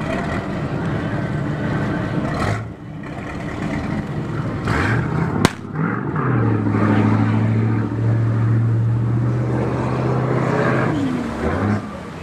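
Workboat's inboard engine running, then revving up about five seconds in and running hard and steady as the boat powers away from the dock, easing off near the end. A single sharp click just before the rev-up.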